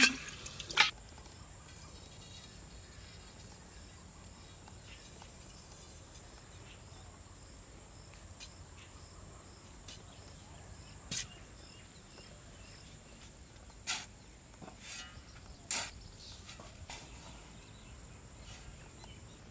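A faint, steady, high insect drone, with a handful of short, sharp strikes of a short-handled spade digging into dry soil in the second half.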